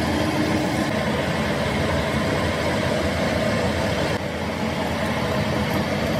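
Metal lathe running steadily, turning a steel workpiece while a twist drill in the tailstock bores into its end: a constant mechanical hum.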